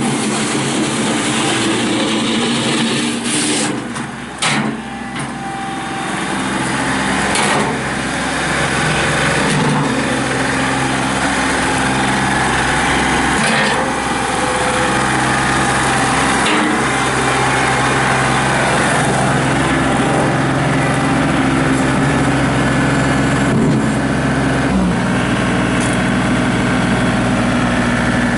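John Deere 2032R compact tractor's diesel engine running as the tractor is worked, dipping briefly about four seconds in, then changing speed in steps several times.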